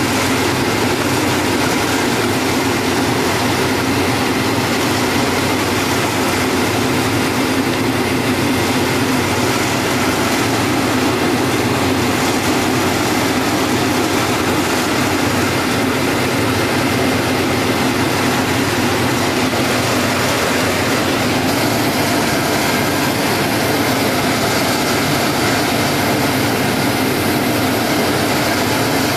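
Timesaver wide-belt grinder running, its motors, abrasive belt and conveyor feed making a steady, loud mechanical drone.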